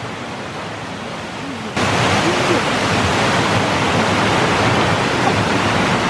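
Water pouring over a small concrete weir in a forest stream: a steady rush of falling water that jumps suddenly louder a little under two seconds in.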